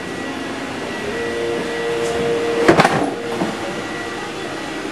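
Steady machinery hum and hiss in a car wash equipment room, with a high steady whine under it. About a second in, a stronger hum tone joins and runs until a sharp knock just under three seconds in.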